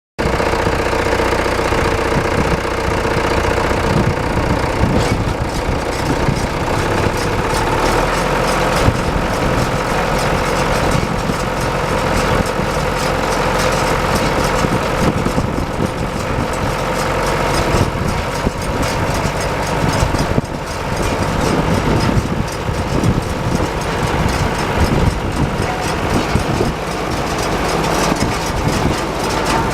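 Tractor engine running steadily, with a steady whine that fades out about five seconds in.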